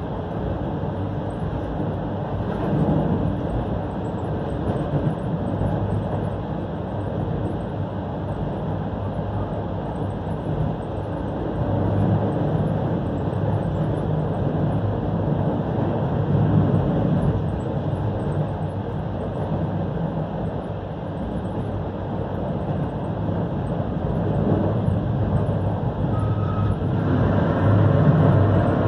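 Running noise heard inside a passenger train coach: a steady rumble of wheels on the track, growing a little louder near the end.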